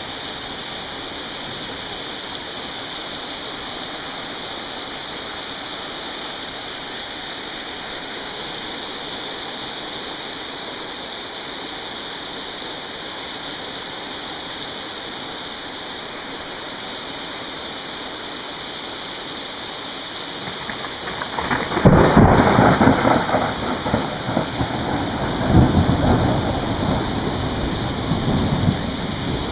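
Heavy rain falling steadily, then a loud clap of thunder about three quarters of the way through that rumbles on for several seconds, with a second swell of rumbling.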